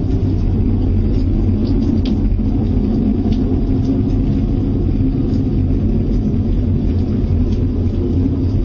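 A loud, steady, deep rumbling roar of unseen origin, which the people hearing it fear is getting very close.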